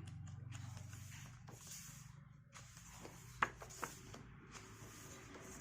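Faint handling of a photobook's paper pages: soft rustling and two small clicks about three and a half seconds in, over a low hum that fades partway through.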